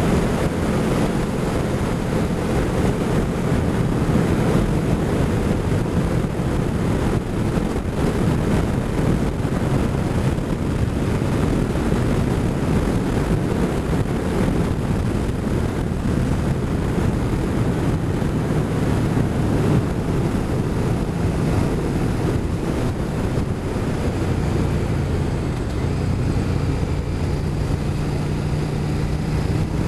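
Motorcycle riding at road speed: wind rushing over the microphone with the engine's steady hum beneath it, the engine note rising slightly near the end.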